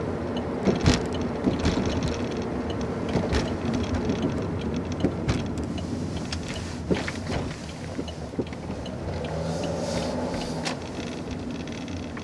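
Car engine and tyre noise heard from inside the cabin while driving, a steady hum with scattered small clicks and knocks.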